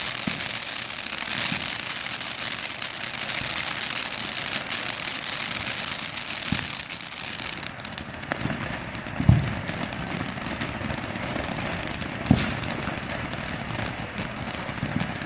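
Ground fountain firework spraying with a steady hiss and crackle. A few sharp pops break through, the loudest two about nine and twelve seconds in.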